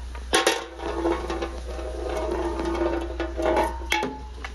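A marble lands in a shallow funnel dish with a sharp clack and circles round it with a steady ringing, rolling hum, then drops through the centre hole with a knock near the end.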